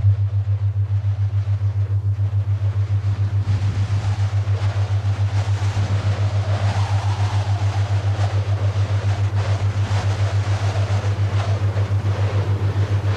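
A low bass drone pulsing rapidly and evenly, with faint hiss above it: electronic sound design from the commercial's soundtrack.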